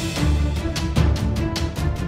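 Background music with a fast, steady percussive beat over held tones.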